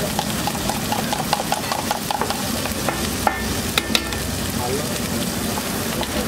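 Spiced masala sizzling and hissing on a large flat griddle, with scraping and stirring ticks throughout. A few sharp, ringing metal clinks come about three to four seconds in.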